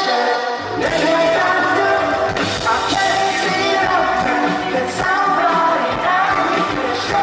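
Live pop-rock band music playing loudly, with a sung vocal line over it.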